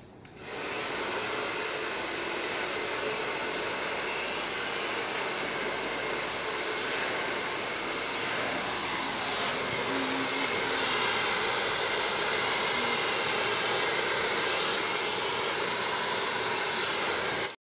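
Handheld hair dryer blowing steadily, a continuous rushing whoosh that cuts off abruptly at the end.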